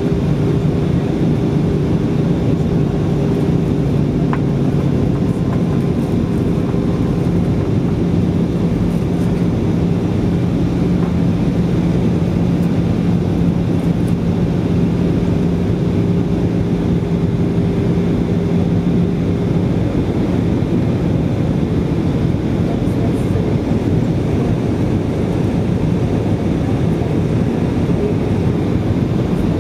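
Steady cabin noise of an Airbus A320 in flight on its descent, a constant rush of engines and airflow heard from inside the passenger cabin. A low hum within it drops out about two-thirds of the way through.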